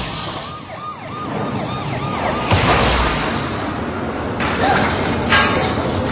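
Tornado storm sound effects: a steady rush of wind-like noise, with a fast, repeating siren-like warble in the first half. Loud gusts or crashes of noise come in about two and a half, four and a half, and five and a half seconds in.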